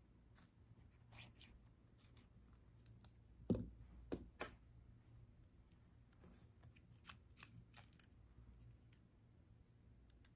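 Hands working paper and scissors on a desk: scattered light snips, clicks and paper rustles, with a heavier thump of something set down about three and a half seconds in.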